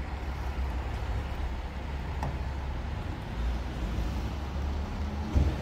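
Outdoor street ambience: a steady low rumble, with a short bump about five seconds in.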